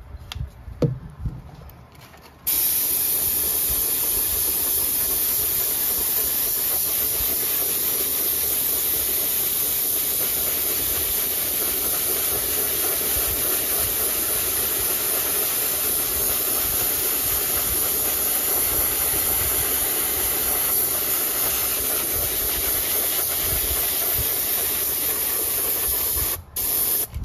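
Airbrush spraying paint: a steady hiss of air that starts abruptly a couple of seconds in and cuts off near the end.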